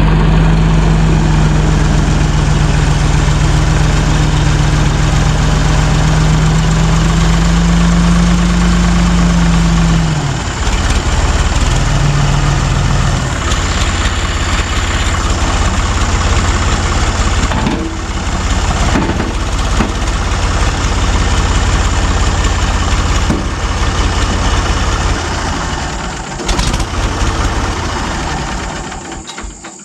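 Backhoe engine running at a steady hum. About ten seconds in the hum breaks off into rougher, uneven engine noise, which fades near the end.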